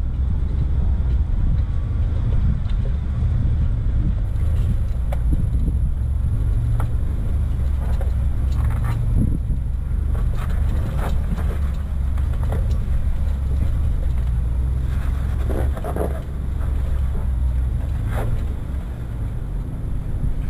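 Four-wheel-drive vehicle crawling over a rock trail: a steady low engine rumble, with scattered knocks and clicks from tyres and suspension working over slickrock ledges and loose stones.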